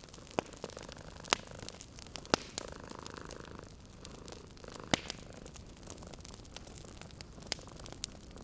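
Wood fire crackling, with about five sharp pops at uneven intervals over a low hiss. A cat purrs softly underneath, most clearly in the first half.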